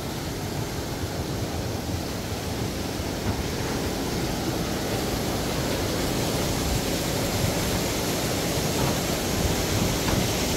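Steady rush of water running down an outdoor water slide, close to the microphone.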